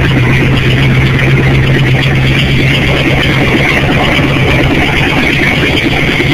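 Worn Chevrolet 305 small-block V8 with a roller camshaft, running steadily with no revving, heard close at the open engine bay.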